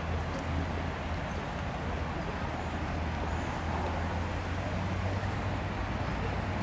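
Steady outdoor background noise with a constant low hum.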